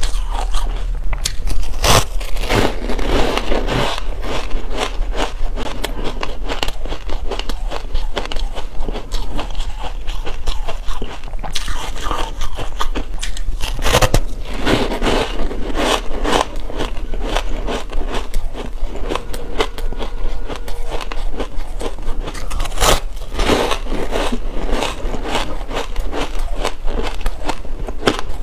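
Close-miked crunching of dense reshaped ice being bitten and chewed: quick runs of crisp cracks and crackles, with a few louder bites about two, fourteen and twenty-three seconds in.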